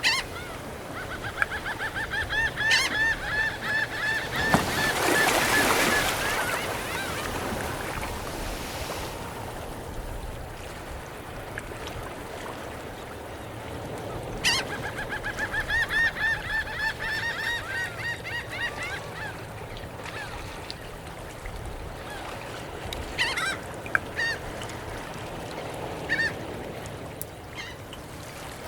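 Gulls calling in two long runs of rapid, repeated yelping notes, one a few seconds in and one about halfway, with a few single calls near the end. A swell of rushing noise comes about five seconds in, over a steady background hiss.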